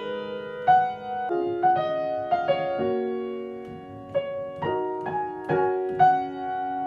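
Solo piano played by ear: a slow melody of single struck notes over held chords, each note ringing on.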